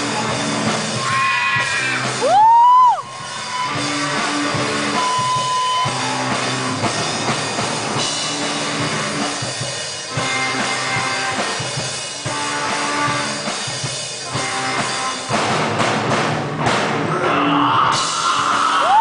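Rock band playing live through stage amplifiers: drum kit, electric guitars and bass. About two seconds in, a loud high squeal slides up, holds briefly and drops away.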